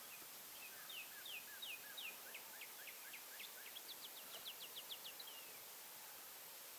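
A small songbird singing faintly: a string of clear down-slurred whistled notes that start spaced apart and speed up into a quick trill, creeping slightly higher in pitch and ending on one lone downward note, over a steady hiss.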